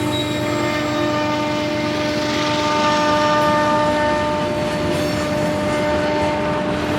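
Diesel freight train passing, with a steady hum of several evenly stacked tones from the locomotives over the continuous noise of the train.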